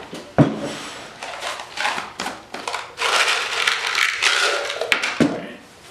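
Metal screws rattling and clinking as they are tipped out of a small glass jar into a hand, with a sharp knock shortly after the start and another knock near the end as things are handled on the wooden bench.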